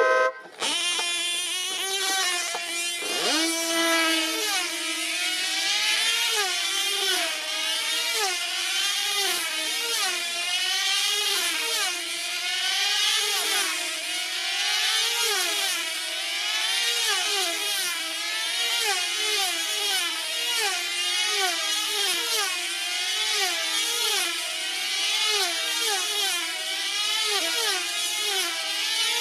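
Small diesel engines of F2C team-race control-line model aircraft running flat out as the planes circle the pilots: a high, buzzing whine that rises and falls in pitch with each lap, several sweeps overlapping.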